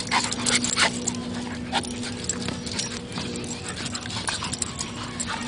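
A Saint Bernard and a black-and-white dog play-wrestling at close range, with a quick run of short, rough dog sounds in the first couple of seconds and fewer after. A steady low hum runs underneath.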